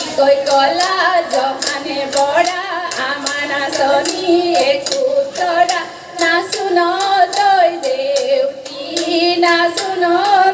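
Women singing an Assamese Jeng Bihu song with no drums, accompanied by steady hand claps about twice a second.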